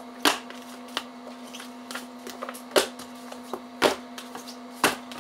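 Hardcover textbooks being set down one at a time onto a stack of books: about five sharp thuds, roughly a second apart, with a few lighter clicks in between, over a steady low hum.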